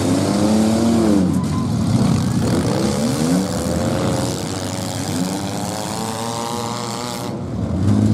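Several demolition derby cars' engines revving up and down together as the cars push against one another in a pack, their pitches rising and falling over and across each other.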